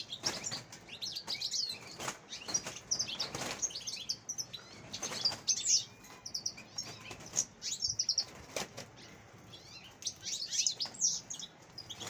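European goldfinches chirping and twittering in quick, high, short notes that come in clusters. A brief rustle is heard now and then.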